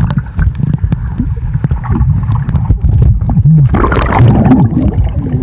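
Pool water splashing and sloshing right against the microphone, heard muffled and heavy in the low end, with dull knocks from the water or handling.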